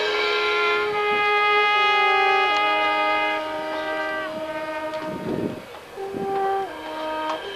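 Marching band brass playing loud sustained chords that shift in pitch every second or so; a long held chord ends about four seconds in, the playing goes softer, and held chords resume near the end.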